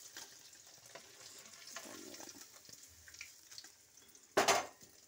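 Hot mustard oil sizzling faintly in a steel kadai as lightly fried paneer is lifted out with a slotted spoon, with small scrapes and ticks of the spoon. A brief loud clatter about four and a half seconds in.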